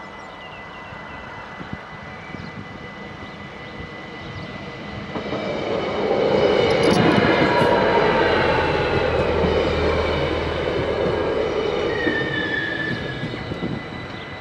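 A train passing by: its rumble builds about five seconds in, stays loud for several seconds, then fades, with a brief high squeal near the end.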